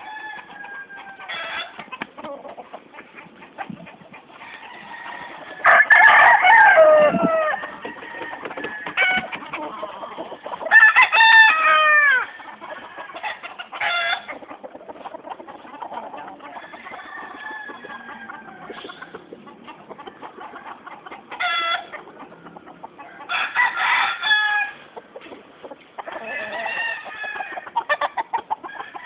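Gamecock roosters crowing and clucking over and over. The loudest calls, with long falling cries, come about six and about eleven seconds in, and more calls follow near the end.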